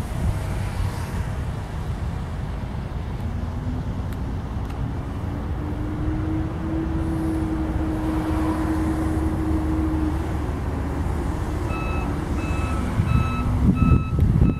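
An approaching three-unit diesel locomotive consist with a GE Evolution Series unit in the lead, its engines giving a steady low rumble. Over the middle few seconds a humming engine tone rises slightly and holds. About twelve seconds in, an electronic bell starts beeping about twice a second.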